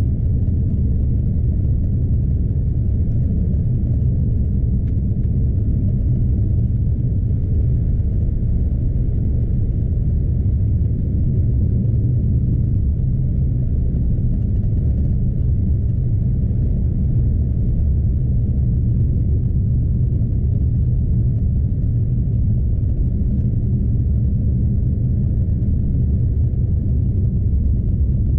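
Scania truck heard from inside the cab while driving: a steady, low engine-and-road rumble that does not change.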